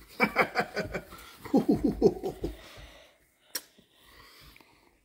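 Goat kid grunting in two quick runs of short, rhythmic grunts while being roughhoused by hand, the second run ending about two and a half seconds in. A single sharp click follows about a second later.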